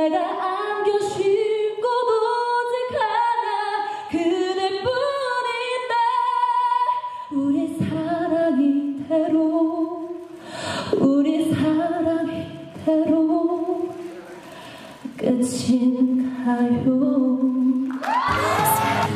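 A young woman singing unaccompanied into a handheld microphone, her voice rising and falling across phrases with short gaps. About a second before the end, a pop song with a full backing track cuts in.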